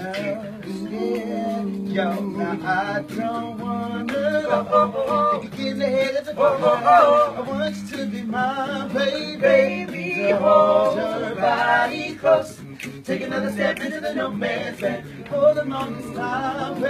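Male a cappella group of five singing in harmony, a held bass note under a moving lead melody, with short percussive clicks throughout.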